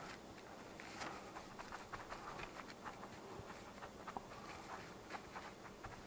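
Faint rustling and scattered light clicks of fingers pressing a fibrous scenery mat and small foliage pieces onto a model diorama base.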